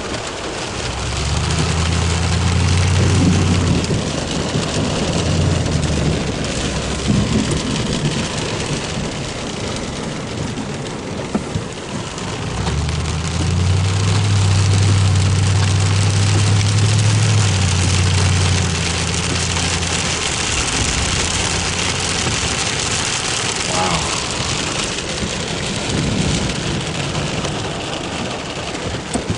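Heavy rain falling steadily during a thunderstorm. Two long low rumbles of a few seconds each come through it, one about a second in and one about thirteen seconds in.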